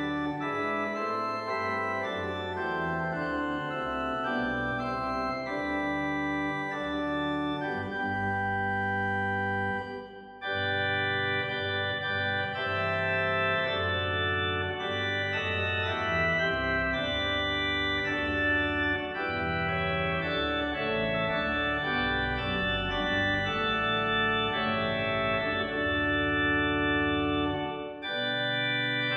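Background music of slow, sustained keyboard chords, with a brief drop-out about ten seconds in.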